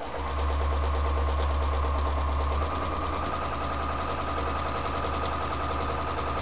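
Electric sewing machine stitching a quarter-inch seam through two cotton patches: the motor runs at a steady speed with a fast, even needle rattle and a low hum, which eases slightly about two and a half seconds in.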